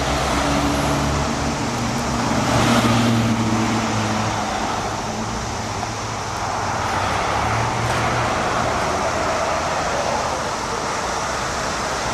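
Steady road traffic, with cars driving past on a busy road; one passing vehicle is loudest about three seconds in.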